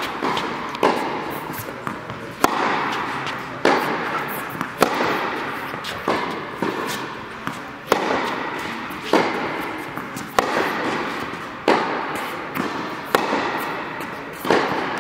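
Tennis rally: the ball struck by rackets and bouncing on the hard court, a sharp hit about every second and a quarter, each ringing out in the large indoor tennis hall.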